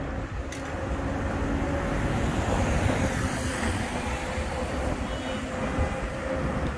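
Street traffic noise with wind buffeting the microphone, steady throughout, with a slight swell in the middle.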